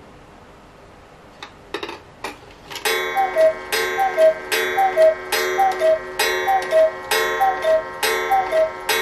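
German 8-day mechanical cuckoo clock striking nine. The strike train releases with a few clicks, then a run of two-note cuckoo calls from the bellows follows about every 0.8 s. Each call opens with a sharp strike that rings on underneath.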